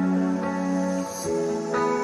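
Calm background music with long held notes, the chord changing about a second in.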